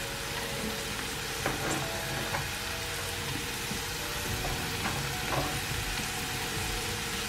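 Chopped onion and garlic sizzling in hot oil in a frying pan as they begin to caramelize. The frying hiss is steady, with a few faint pops.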